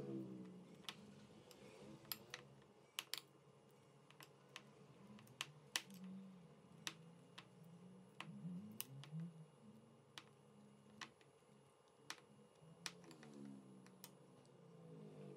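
Faint clinks of a metal spoon against the side of a bowl while stirring and pressing a thick powdered-milk and condensed-milk paste, a light click about once a second at an uneven pace.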